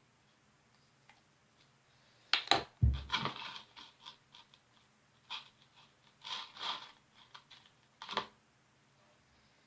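Small plastic glitter containers being handled while glitter is added to glue: scattered sharp clicks and short rattles, with a dull thump about three seconds in, a cluster around six to seven seconds and a last knock a little after eight seconds.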